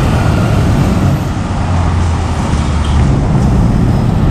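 Road traffic passing close by: car and motorcycle engines and tyre noise, a steady low rumble.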